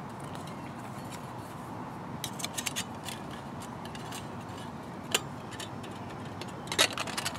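Thin stainless steel panels of a Bushbox Ultralight folding wood stove clicking and scraping against each other as they are handled and fitted together: a cluster of light clicks about two seconds in, a single click around five seconds, and another cluster near the end.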